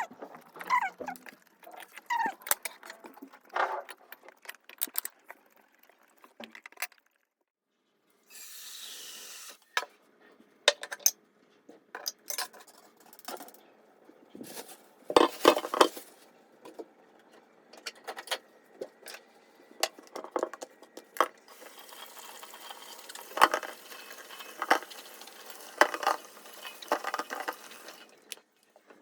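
Kitchen work sounds: dishes and cutlery clinking and knocking in scattered, irregular strokes, with a short hiss about eight seconds in and a faint steady hiss under the clinks near the end.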